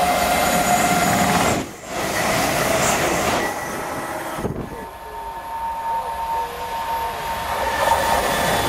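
Electric trains running through a station: a Class 350 Desiro electric multiple unit approaches with a steady high whine. After two abrupt breaks in the sound, a Class 390 Pendolino approaches with another steady tone.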